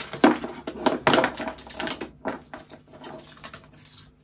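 Paper wrap and a coiled power cable being handled and pulled apart, rustling and crinkling in quick irregular bursts, loudest in the first second or so.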